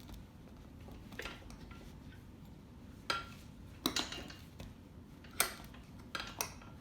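Steel tire spoons clinking and scraping against a dirt bike wheel rim while levering the tire bead off, a handful of sharp, irregularly spaced clicks.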